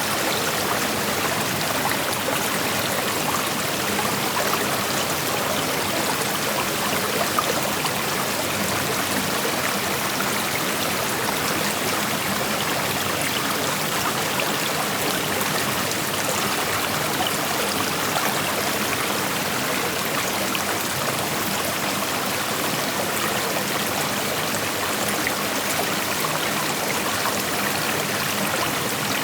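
A shallow creek flowing steadily over rocks: an even rush of water with small splashes and trickles in it.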